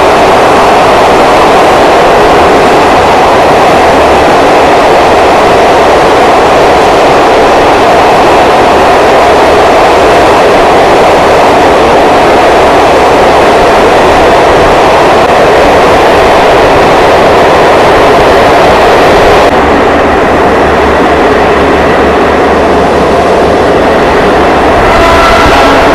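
Passenger train running at speed through a long rail tunnel, heard from inside the coach as a loud, steady roar of wheels on rails. About twenty seconds in the hiss dulls a little, and faint whining tones come through near the end.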